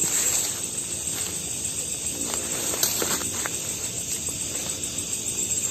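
Night chorus of crickets and other insects making a steady high-pitched trill. A few faint clicks or rustles come in the middle.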